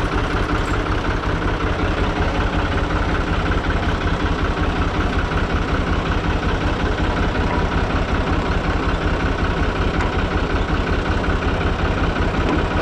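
Türk Fiat 480 tractor's diesel engine idling steadily.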